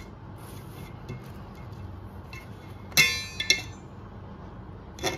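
A stainless steel plate clinks and rings as a knife blade knocks against it: one sharp strike about three seconds in, a smaller clink just after, and another knock near the end. Soft peeling of a dried mango leather sheet lifting off the plate comes in between.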